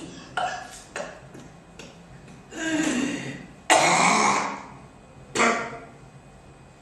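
A man coughing and clearing his throat: a few small hacks, then a longer one, then a harsh, loud cough that starts abruptly about four seconds in, and one more after it.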